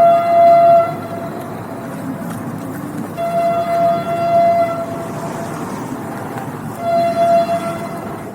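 Train horn sounding three times: a held blast that stops under a second in, a longer one from about three seconds in, and a short one near seven seconds. Between the blasts the train's running rumble continues.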